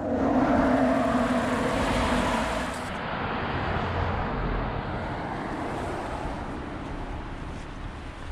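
A car passing on the road, with a steady hum that is loudest in the first couple of seconds. After a cut it gives way to steadier outdoor road noise with a low rumble.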